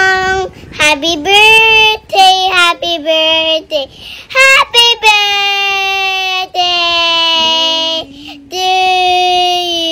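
A young girl singing solo, short notes at first and then long held notes in the second half.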